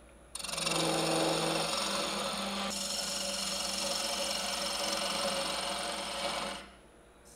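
Gouge cutting the outside of a spinning walnut goblet cup on a wood lathe: a steady cutting noise over a low hum. It starts just after the beginning and stops suddenly near the end, when the tool comes off the wood.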